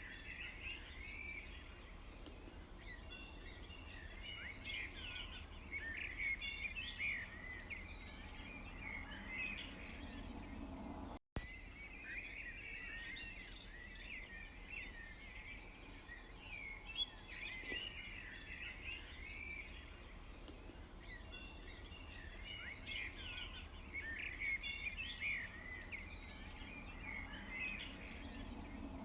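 Busy chorus of songbirds chirping and trilling, many short rapid calls overlapping over a low steady background hum. The sound cuts out for an instant about eleven seconds in.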